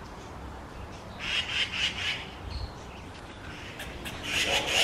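A bird mobbing a cat with harsh, rapid scolding chatter, a quick series of rasping notes. It comes in two bouts, about a second in and again near the end.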